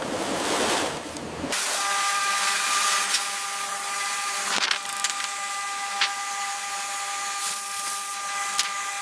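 A machine's steady high whine over a hiss, with a few sharp clicks, cutting in suddenly about a second and a half in.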